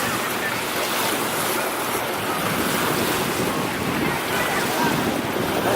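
Steady rushing noise of wind buffeting the microphone mixed with water splashing and sloshing, without a clear engine note.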